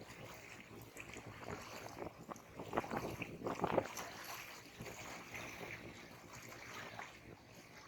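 Small sea waves lapping and splashing at the shore, with a louder run of splashes about three seconds in.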